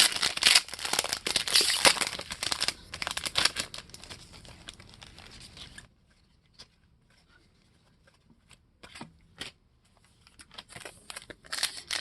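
Trading card pack wrapper being torn and crinkled for about four seconds, then a quiet stretch with a few soft taps, and crinkling again near the end.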